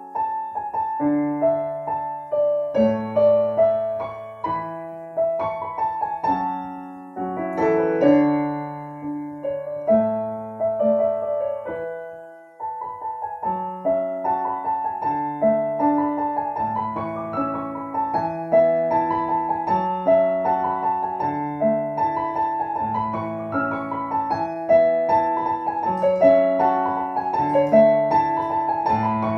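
Solo piano music, a gentle piece of single notes and chords; it fades briefly about twelve seconds in, then picks up again.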